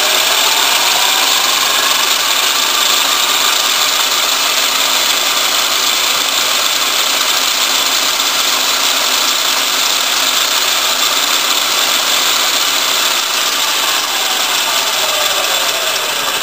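Homemade electric pocketbike's DC motor and chain drive running with no rider's weight on it: a whine rises in pitch as the motor spins up at the start, holds steady under a loud hiss of drive noise, then falls as it winds down near the end.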